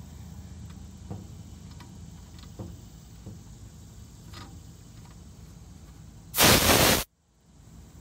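Short, loud hiss of refrigerant escaping as a wireless pressure probe is threaded onto the suction service port of a Carrier rooftop AC unit, cutting off suddenly. Under it is a steady low hum from the running unit and a few small clicks of the fitting.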